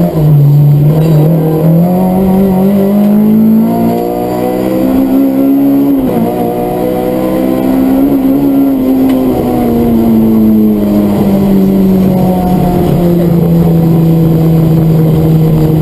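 Rally car engine heard from inside the cabin under hard driving. The revs climb for about five seconds, drop sharply about six seconds in, ease down, then hold steady for the rest.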